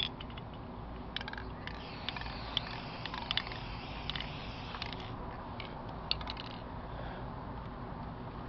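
Aerosol spray paint can hissing in short sprays from about a second in until near seven seconds, with scattered light clicks and taps of the can and paper card being handled.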